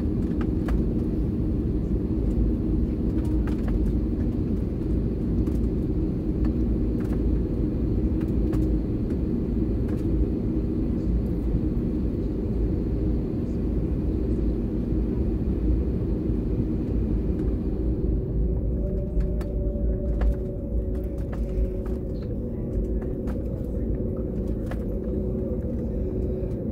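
Airbus A320-family airliner cabin noise while taxiing: a steady low drone and rumble from the jet engines and rolling wheels, with light knocks as the tyres cross the concrete slab joints. About two-thirds of the way through the hiss eases and a steady hum comes in under the drone.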